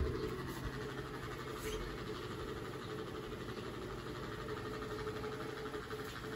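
A steady low mechanical hum in a small room.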